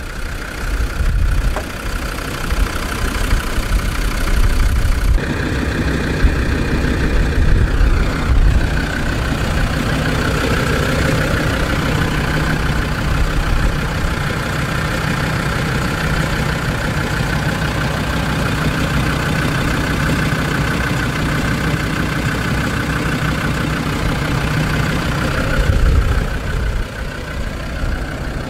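Land Rover Discovery 2's 2.5-litre inline-five turbodiesel (Td5) running at a steady idle.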